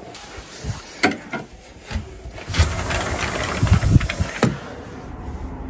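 Clicks, knocks and rubbing from a window being opened while a phone is handled: a sharp click about a second in, then a run of rubbing and knocking with low thuds from about halfway, ending with another sharp click.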